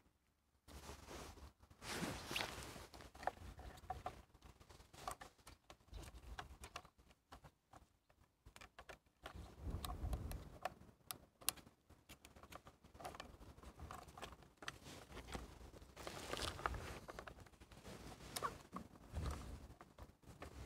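Faint handling noise: scattered small clicks and rustles as the wiring and plastic clips of a Honda Civic fuel pump module are worked by gloved hands.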